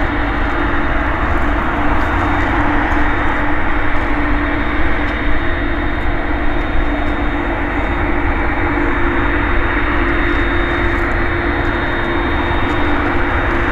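Airbus Beluga A300-600ST's twin General Electric CF6-80C2 turbofan engines running loudly and steadily: a dense jet rush with a constant low hum and a thin high whine.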